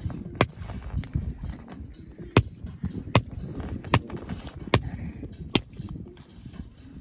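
Small hatchet chopping firewood into kindling: about seven sharp blade-into-wood strikes, coming roughly one every second and speeding up to under a second apart in the second half.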